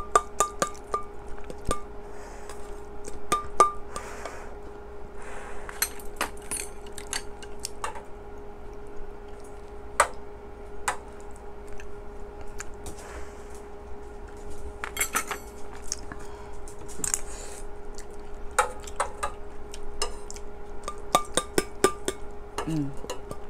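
Metal chopsticks and a spoon clinking and scraping against a stainless-steel pot and a metal rice bowl while eating, in scattered irregular clicks, some ringing briefly. A steady faint hum runs underneath.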